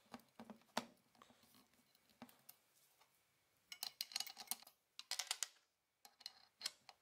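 Faint clicks and metallic taps of parts being handled on an angle grinder's head: a hex key on the guard clamp, then the spindle flange nut being fitted onto the spindle, with quick clatters of clicks about four, five and six seconds in.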